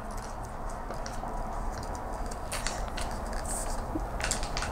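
Faint handling noise from a Manfrotto Element Big carbon-fibre tripod being collapsed by hand: a few light clicks as the legs are folded, over a steady low hiss.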